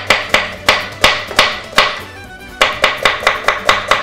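Kitchen knife chopping cabbage finely on a wooden chopping board: sharp knocks about three a second, a short pause, then a quicker run of knocks near the end.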